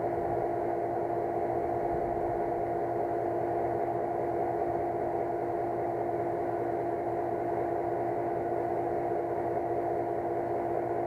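Lochinvar gas pool heater firing, its combustion blower running, together with the pool's circulating pump: a steady mechanical hum with a constant tone held throughout.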